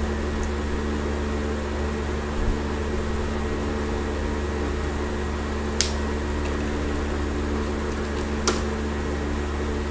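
A steady mechanical hum made of several low steady tones over a faint hiss, broken by two sharp clicks about six and eight and a half seconds in.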